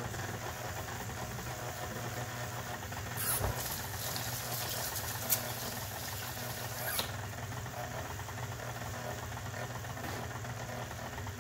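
Electric stand mixer running steadily with its flat paddle beating butter, sugar and eggs in a steel bowl, the motor giving a constant hum. A few brief knocks come through, the sharpest about five seconds in.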